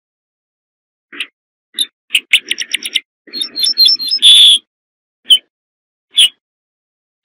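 Ortolan bunting calling: short single call notes, a quick run of repeated notes, then a louder phrase that ends in a longer note, and two more single calls near the end.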